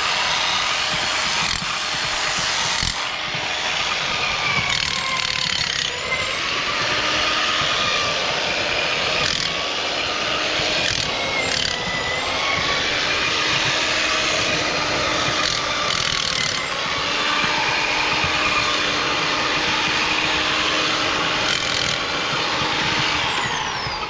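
Electric drill turning an auger that bores horizontally through gravelly soil under concrete, running steadily with its pitch sagging and recovering now and then under load, with scattered scraping clicks. It winds down and stops near the end.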